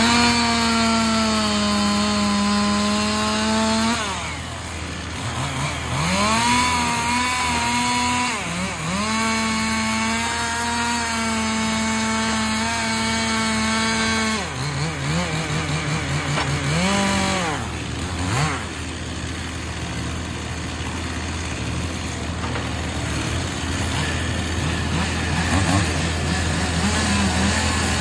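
Chainsaw cutting up the limbs of a felled maple. It revs up at the start and cuts at full throttle in long runs, drops back twice between cuts, and stops about two-thirds of the way through. A steady low engine hum from the grapple truck runs underneath.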